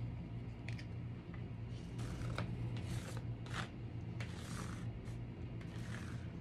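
A flexible plastic card scraped across sprayed, wet static cling film on a glass tabletop in a series of short strokes, squeegeeing out air bubbles. A low steady hum runs underneath.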